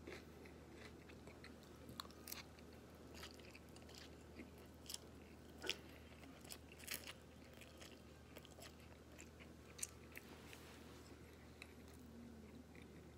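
Faint chewing of a mouthful of chow mein noodles, with scattered soft clicks and smacks of the mouth; the sharpest click comes a little before the middle.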